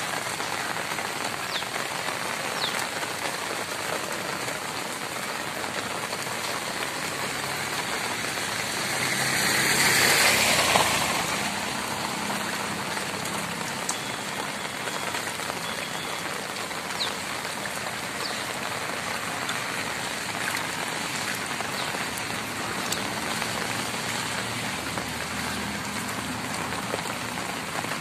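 Heavy rain falling steadily on a flooded road, with a brief swell of louder rushing noise about ten seconds in.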